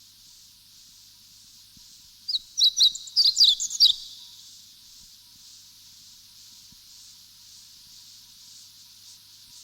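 A wild bird gives a quick burst of sharp, high chirps about two seconds in, lasting around a second and a half. Underneath runs a steady high hiss that swells and fades about once a second.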